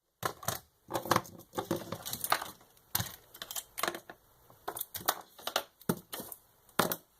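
An irregular run of sharp clicks and knocks, about a dozen, with short quiet gaps between them: small hard objects being handled or tapped.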